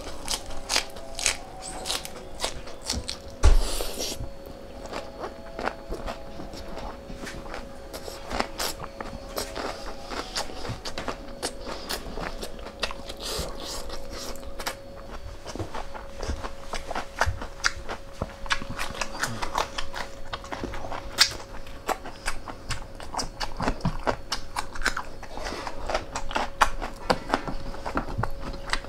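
Close-miked eating of spicy bone marrow: chewing and biting with many irregular wet clicks and smacks. One loud thump about three seconds in, over a faint steady hum.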